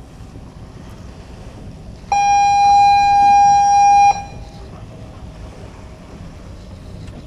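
A horn sounds one loud, steady blast lasting about two seconds, starting and stopping abruptly, over wind and water noise on an open boat.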